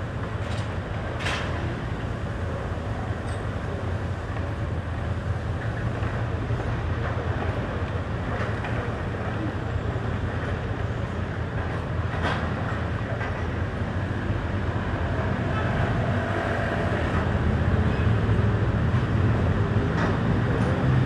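Steady low rumble of vehicles with a few sharp clicks, growing louder near the end.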